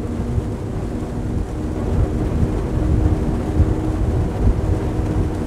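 A pair of Mercury 450-hp outboard engines running flat out on a powerboat at about 85 mph: a steady low drone with faint engine tones, mixed with wind noise on the microphone.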